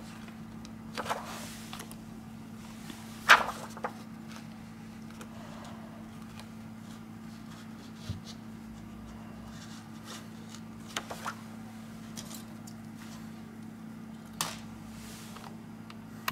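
Handling noise as a thin plastic sheet is worked under the edge of a Samsung Galaxy S5's display: a few scattered short scrapes and clicks, the loudest about three seconds in, over a steady low electrical hum.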